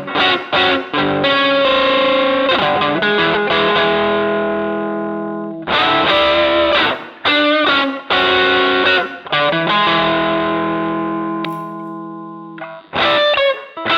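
Electric guitar played through an MXR Dynacomp compressor pedal: short picked notes, then chords left to ring with long, even sustain that fades slowly, and quick picked notes again near the end.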